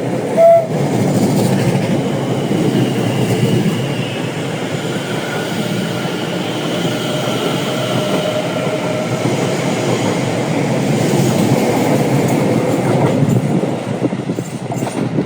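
Greater Anglia Class 720 electric multiple unit sounds one short horn tone about half a second in, then runs through the platform without stopping. Its wheels make a steady rumble on the rails with a faint whine, and the sound drops away near the end.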